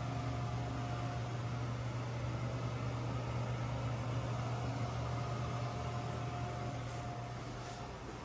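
A steady low mechanical hum with a faint, thin high whine over it. It swells slightly at the start and eases off near the end.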